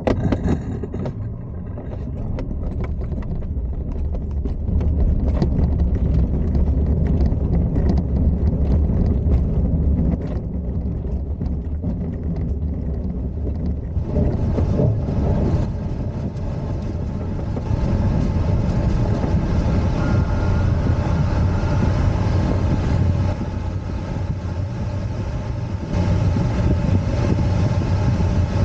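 Glider's take-off run on a grass strip under aerotow, heard from the cockpit: a sudden start as it begins to roll, then the main wheel rumbles and knocks over the bumpy ground while it speeds up. About halfway the knocking thins out and a steady rush of airflow builds as the glider lifts off and climbs.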